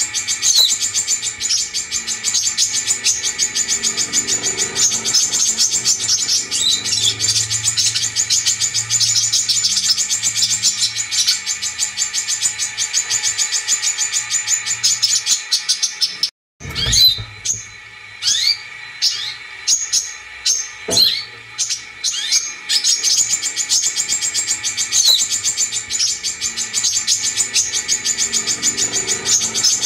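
Brown-throated sunbird song from a lure recording: fast, high, continuous twittering chatter. Just past halfway it cuts off briefly, gives way to a few separate sharp chirps and a click, then the fast twittering resumes. A faint low hum sits underneath.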